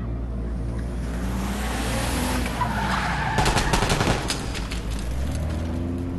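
Action-film sound effects: a car skidding, then a rapid volley of gunshots about three seconds in, over a low steady drone.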